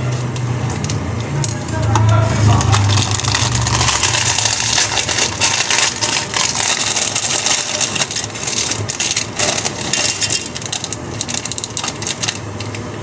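Crinkling and rustling of instant-noodle packet plastic as the packets are torn open and handled, a dense crackle with many small clicks. A steady low hum sits under it for the first few seconds.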